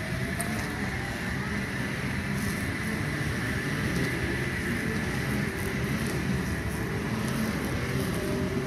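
Four-car OSCAR (H set) electric multiple unit accelerating away from the platform: steady running noise of motors and wheels with a faint whine that rises slowly in pitch.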